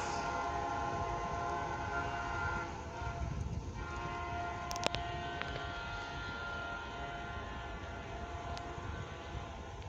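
Air horn of an approaching CN SD70M-2 diesel locomotive sounding a chord: one long blast, a short break, then a second long blast that fades away. A sharp click comes about halfway through.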